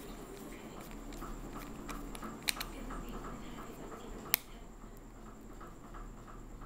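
Small precision screwdriver driving tiny screws into the metal frame of an iPod Classic: light ticks and handling noise, with two sharp metallic clicks about two and a half and four and a half seconds in.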